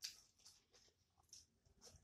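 Faint eating sounds: soft chewing and a few short, wet mouth clicks and lip smacks, one at the very start and others scattered through.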